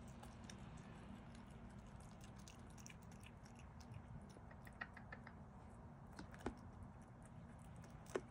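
An opossum chewing a slice of pizza: faint chewing with scattered small clicks, a few sharper ones in the second half, over a low steady hum.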